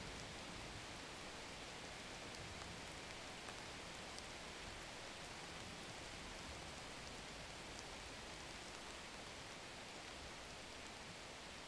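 A faint, steady hiss that does not change.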